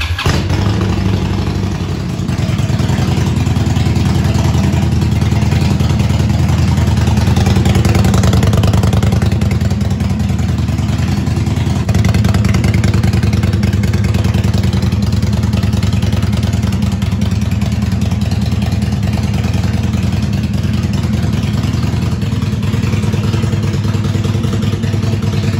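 Indian Scout Bobber's V-twin engine idling steadily through a Freedom Performance Radical Radius exhaust. The exhaust note is deep and tight, with no revving.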